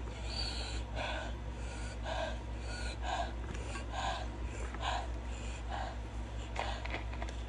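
A person panting in and out through a wide-open mouth, a short breath about every 0.7 s, cooling the mouth from the burn of very spicy noodles. A steady low hum runs underneath.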